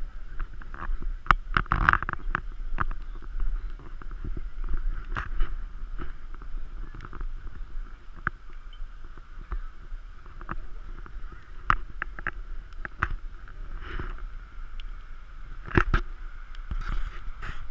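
Steady wind rumble on the microphone with scattered sharp knocks and clicks, a cluster of them about two seconds in and again near the end.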